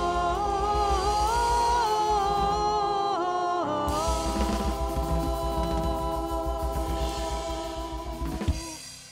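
The last held note of a gospel-style song, sung by a lead singer and a women's backing choir over piano, bass guitar and drums. Rapid drumming runs under the sustained chord, the voices shift to a final chord partway through, and a last hit about eight and a half seconds in lets it ring and fade away.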